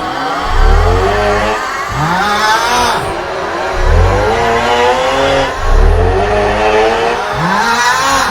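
A man's loud, exaggerated snoring, the 'aughhhh' meme sound, looped over and over: a deep rumbling snore alternating with a voiced 'aughhhh' that glides upward in pitch, several cycles in a few seconds.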